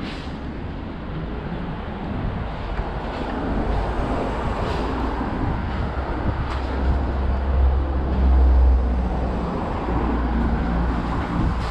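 Street traffic: cars driving past close by on a narrow town street, with a deep engine rumble that builds and is loudest about two thirds of the way in.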